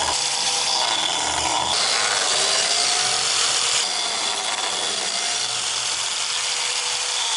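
Makita biscuit joiner (plate joiner) running steadily, its spinning 4 mm cutter plunged into the end of a hardwood board to cut slots for Lamello connectors.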